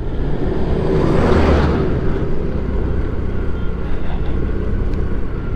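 Riding noise on a scooter: steady wind rush over the microphone and a low engine hum. About a second in, a louder rush swells and fades as an oncoming truck passes.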